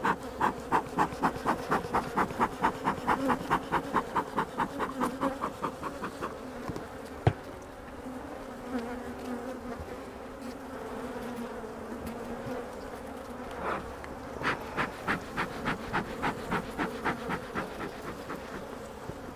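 Honey bees from an open, agitated hive buzzing in a dense, steady hum. Over the hum runs a quick series of soft pulses, about four a second, in the first several seconds and again near the end, with a single click in between.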